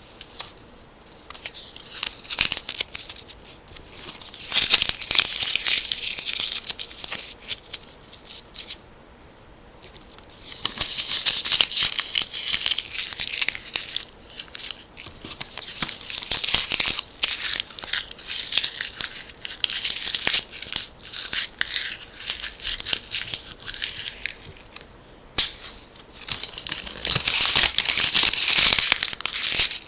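A sheet of ordinary paper being crumpled by hand: loud irregular crackling in long spells, with a pause about a third of the way in and a brief one near the end.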